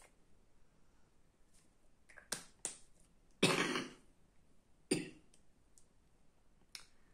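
A woman coughing: two coughs, the louder one about three and a half seconds in and a shorter one about five seconds in, with a few short, fainter sounds before and after.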